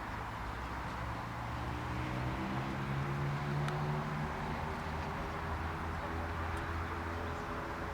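An engine running steadily with a low hum, its pitch rising a little about two seconds in and then holding.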